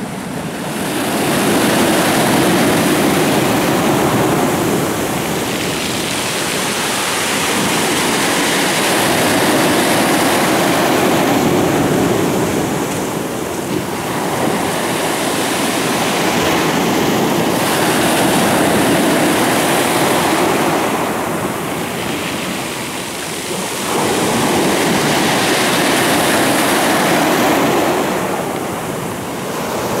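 Sea surf breaking and washing over a pebble beach, the rush swelling and easing every several seconds.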